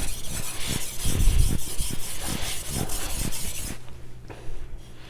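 Carbon-steel kitchen knife blade rubbed back and forth over a wet 1000-grit whetstone, a gritty rasping in repeated strokes that stop near the end.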